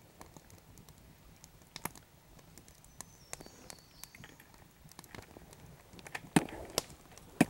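Quiet outdoor ambience with scattered small clicks and ticks, a few sharper ones near the end, and a faint high chirp about three seconds in.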